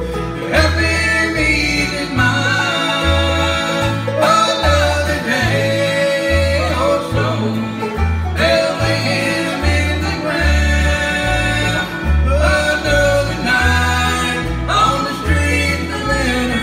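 Bluegrass band playing live: picked acoustic guitar and banjo over a bass line that alternates between two low notes about every half second.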